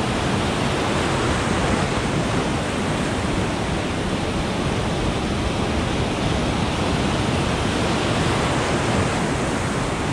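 Ocean surf breaking and washing over rocks: a steady rush of whitewater with no single crash standing out.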